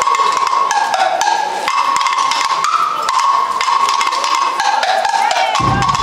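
Guggenmusik band playing as it marches in: a high, stepping melody line over dense, clattering percussion, with deep bass drums and low brass coming in just before the end.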